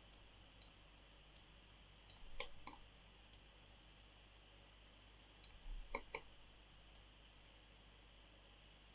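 Faint computer mouse clicks, single and in quick little runs, scattered over the first seven seconds.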